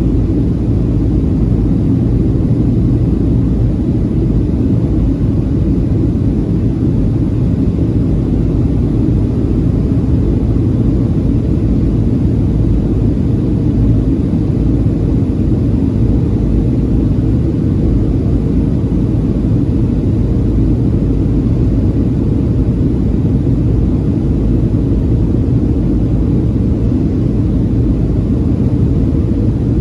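Steady low rumble of a Boeing 737-700 in flight, heard from inside the cabin: engine and airflow noise at an even level, with no changes.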